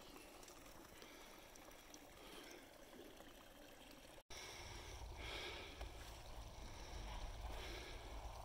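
Faint rustling of nylon tent fabric being handled as tents are pitched. A brief dropout comes about four seconds in, after which a steady low rumble sits under the rustling.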